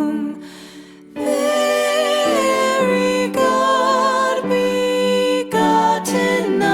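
Christmas music with long, wavering held notes. It drops quiet for about a second at the start, then comes back in full.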